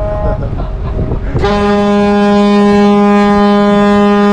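Ferry's ship horn sounding one long, steady, low blast that starts about a second and a half in, as the ship comes into port. Before it, low wind and engine rumble.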